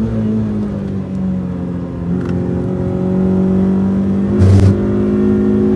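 Renault Twingo RS's 1.6-litre four-cylinder engine pulling hard at high revs, heard from inside the cabin. Its note is held fairly steady with small dips, and there is one brief thump a little over four seconds in.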